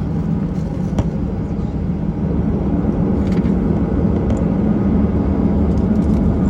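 Airbus A319 jet engines running with a steady low rumble that slowly builds in level, as the airliner lines up on the runway for takeoff.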